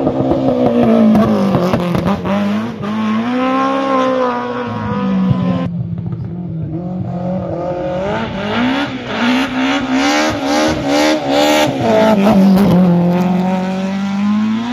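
Rally car engines at full throttle, the engine note climbing and falling with each gear change and lift. Several quick rev rises and drops in a row through the middle of the second shot, then a steadier pull.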